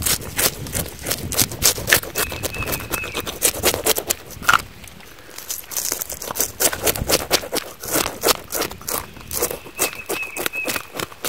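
Fish being cleaned with a knife: rapid, irregular scraping and cutting strokes.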